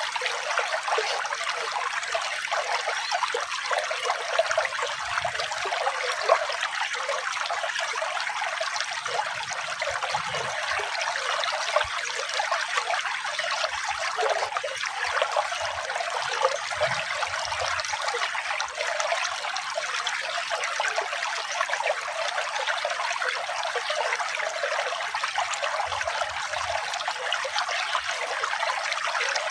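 Running water trickling and splashing steadily, like a small stream, with a thin, hissy sound and little low end.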